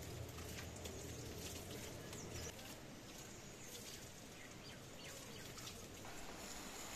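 Faint splashing of water running from a stone spout, with birds chirping.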